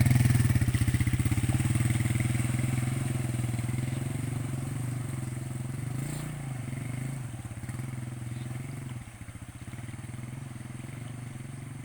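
Motorcycle engine running at steady low revs while being ridden through floodwater, gradually getting quieter, with a further drop about nine seconds in.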